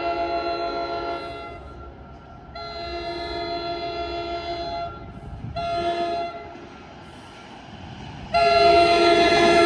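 NJ Transit train's locomotive air horn, a multi-note chime, blowing long, long, short, long: the standard grade-crossing warning signal. The last long blast starts near the end and is the loudest as the train draws close.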